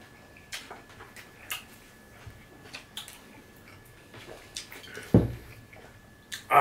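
Mouth and hand eating sounds: scattered soft smacks and clicks as two people eat rice and curry from plates with their fingers. About five seconds in comes one loud, dull thump, a glass bottle set down on the table.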